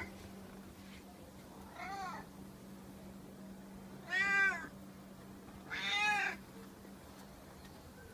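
Ginger domestic cat meowing three times, about two seconds apart, each meow rising and then falling in pitch. The middle meow is the loudest and the first the faintest.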